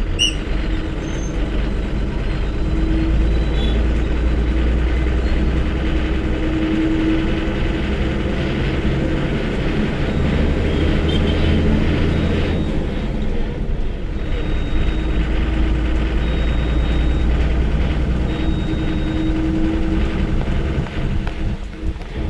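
Front-mounted diesel bus engine running under load, heard from the driver's cab beside the engine cover. About halfway through, the engine note drops briefly during a gear change and then pulls again.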